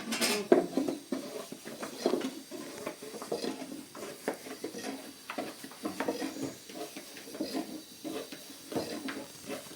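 Pots, dishes and utensils being handled: irregular clinks, knocks and scraping, with one louder knock about half a second in.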